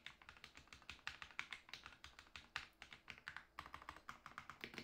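Fast typing on a Ducky One 2 Mini 60% mechanical keyboard fitted with hand-lubed Cherry MX Silver Speed linear switches: a rapid, continuous stream of key strokes, many each second.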